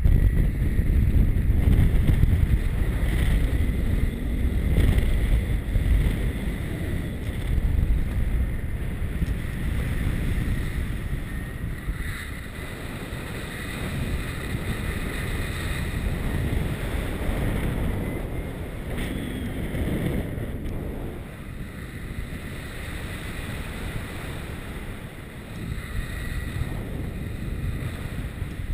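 Wind buffeting the microphone of a camera carried in paraglider flight: a steady low rumble, loudest in the first several seconds and then easing off somewhat.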